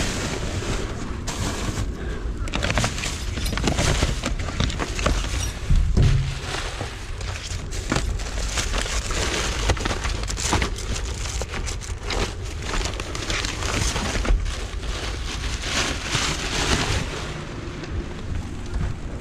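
Rummaging through trash inside a dumpster: paper and plastic bags rustling and crinkling as books and calendars are shifted, with a dull thump about six seconds in.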